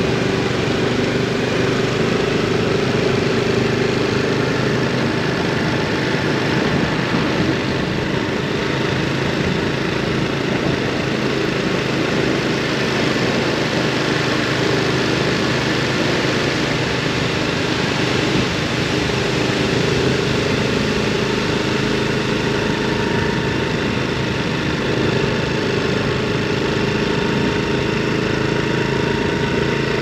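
Honda Super Cub 110 Pro's small single-cylinder four-stroke engine running steadily, under an even hiss of wind and road noise.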